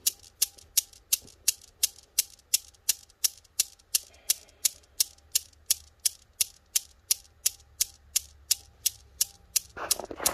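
Chrome steel balls of a 7-ball Newton's cradle clicking against each other as the end balls swing out and back, a sharp metallic click about three times a second in an even rhythm. A broader noise joins the clicks near the end.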